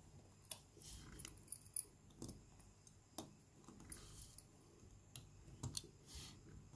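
Faint, scattered small clicks and taps from tweezers or a pick working on the inside of an opened Samsung Galaxy S4.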